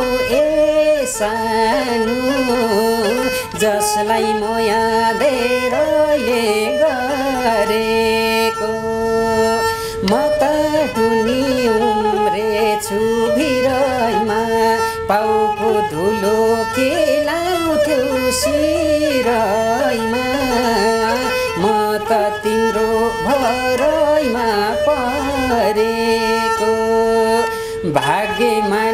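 Nepali sarangi, a small bowed folk fiddle, played while a man sings a folk-style song with it. A steady held note runs under the gliding, ornamented sung melody.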